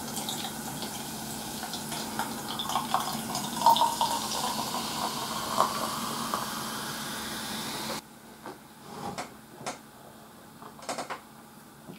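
A carbonated canned drink being poured into a stainless steel tumbler, running and fizzing steadily with small crackles, then stopping suddenly about two-thirds of the way through. A few faint sips follow.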